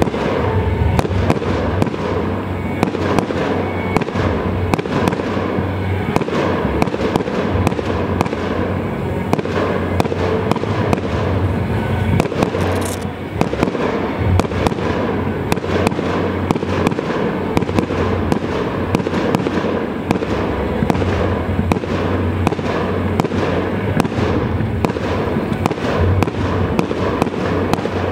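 Fireworks display: a dense, unbroken barrage of bangs and crackles from aerial shells bursting, easing briefly about thirteen seconds in.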